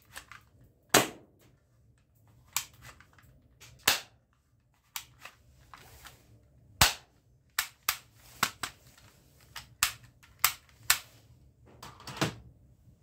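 Plastic spring-powered toy guns clicking and snapping as they are cocked, fired and handled: about fourteen sharp clicks at irregular intervals, a few of them loud.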